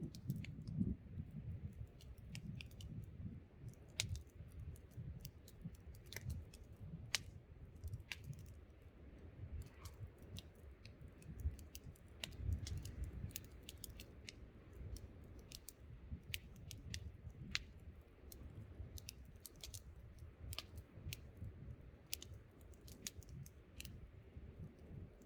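Wood campfire crackling, with many sharp irregular pops and snaps, over a low, gusting rumble of wind.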